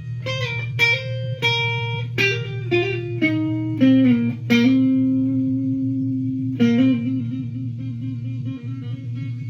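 Electric guitar played solo: single picked notes with slides, stepping down in pitch, then a long held low note from about halfway, shaken with vibrato near the end. A steady low hum runs beneath it.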